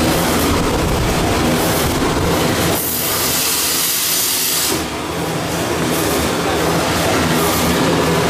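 Automatic toilet-roll band saw and rewinding line running with a steady machine hum and rattle. About three seconds in, a loud hiss lasts for about two seconds, around the time cut rolls come out onto the chute.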